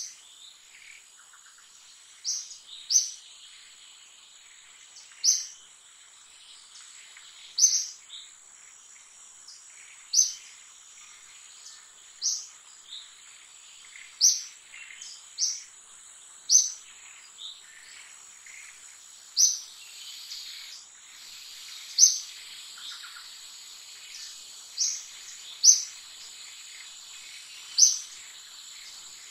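Forest ambience: a steady, high insect drone, with short, high bird chirps repeating every two seconds or so, some in quick pairs.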